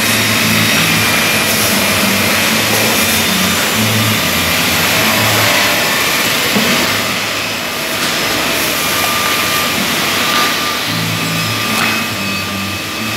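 Multiple rip saw running with a loud, steady noise, under a background music track with a stepping bass line.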